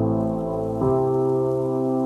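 Background music: sustained synth chords that change about a second in.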